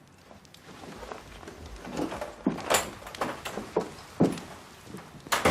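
A door opening and closing: a run of knocks and thumps, the loudest a sharp shut near the end.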